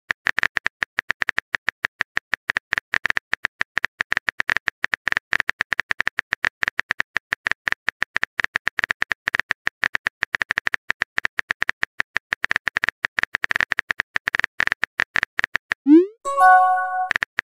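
Rapid, steady keyboard typing clicks from a texting-story app as a message is typed out. Near the end a short rising blip and chime sounds as the message is sent.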